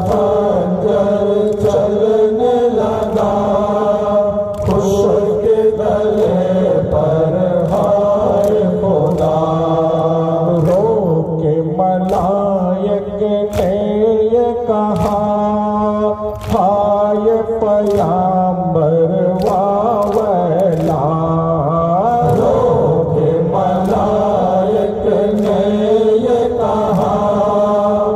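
Group of men chanting a noha, an Urdu mourning lament for Imam Hussain, in unison in long drawn-out sung lines, with chest-beating (matam) slaps about once a second.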